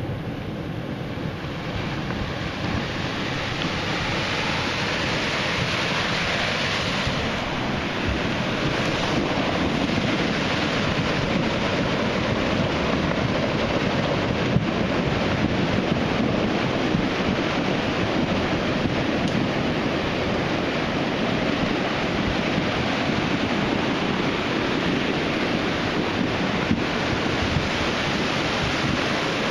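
Flash flood in a desert creek: a torrent of muddy, churning water rushing down the channel in a steady, noisy rush. It grows louder over the first few seconds as the surge comes through, then holds steady.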